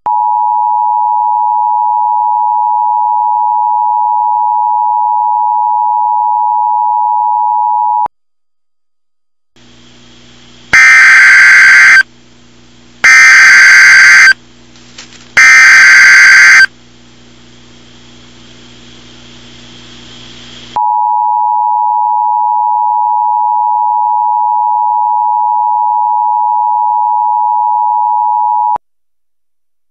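Mock Emergency Alert System broadcast signal: a steady tone near 1 kHz for about eight seconds, then three harsh, loud data bursts over a low hum (the EAS header code sent three times), then the steady attention tone for about eight seconds before it cuts off.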